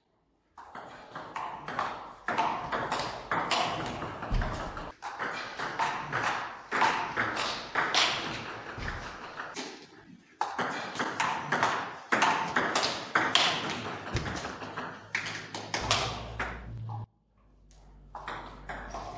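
Table tennis rallies: the ball clicking back and forth off the paddles and the table in quick, irregular strikes, with a couple of short breaks between points.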